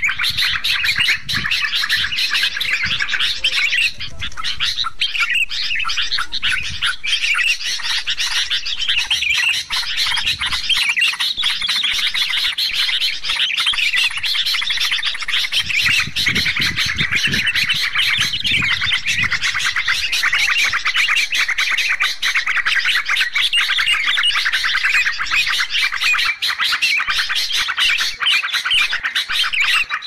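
Dense, continuous chorus of yellow-vented bulbuls (trucuk) and sooty-headed bulbuls (kutilang), many birds chattering and calling over one another, used as a bird-trapping lure recording.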